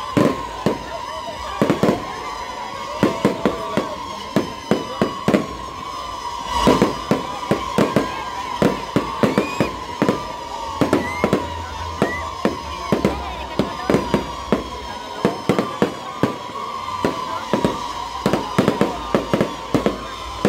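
Aerial fireworks going off in a rapid barrage of bangs, two to four a second, over a steady wavering high tone.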